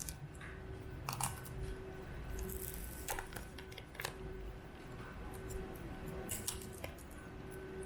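Scattered small clicks and rustles of handling, over a steady faint hum.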